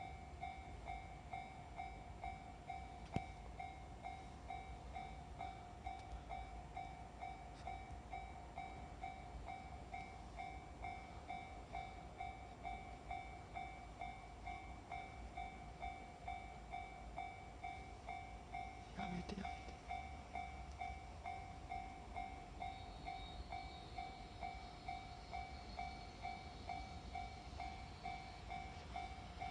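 Japanese level-crossing warning bell ringing in a steady, evenly repeating rhythm, the signal that a train is approaching the crossing.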